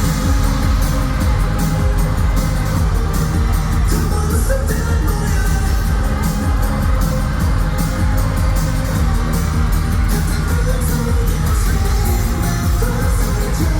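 A K-pop song performed live over a concert sound system: singing over a loud, steady backing track with a regular beat.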